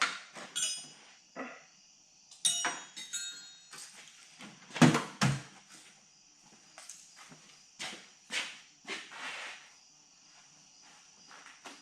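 Hand tools and metal parts being handled on a workbench: scattered clicks and knocks, a couple of short metallic rings, and two louder knocks about five seconds in.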